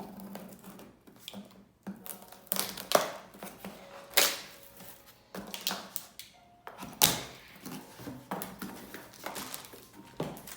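A cardboard box and its packaging being opened by hand: irregular scraping, rustling and a few sharp knocks, loudest about three, four and seven seconds in.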